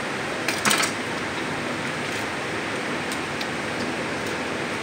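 A knife chopping chicken on a wooden block: a quick cluster of sharp knocks about half a second in, then a few lighter taps, over a steady background hiss.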